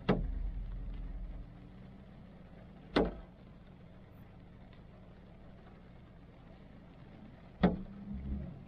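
Inside a car stopped in the rain: a steady low hum with three sharp single knocks of heavy drops striking the car, about three seconds apart, the last followed by a low rumble.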